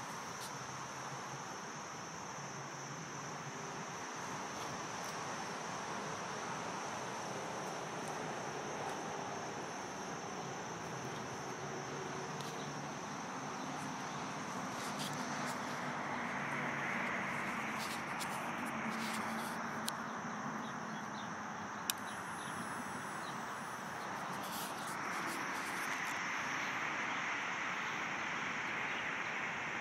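Quiet outdoor background: a steady high-pitched insect drone over a soft hiss that swells twice, with one small click about two-thirds of the way through.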